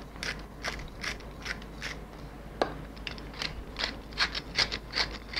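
Hand pepper mill being twisted back and forth, its grinder crunching peppercorns in a run of short ratcheting clicks that quicken toward the end.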